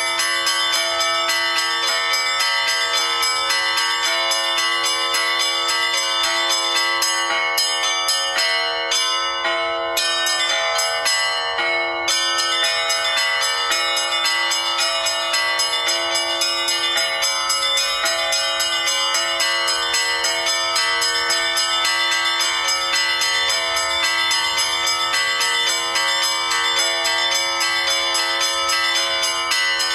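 Bells ringing rapidly and continuously, many pitches sounding over one another.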